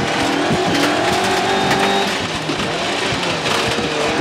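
Rally car's engine running hard at fairly steady revs, heard from inside the cabin, over the rush of tyres on a loose gravel road. Scattered sharp ticks of stones hit the car.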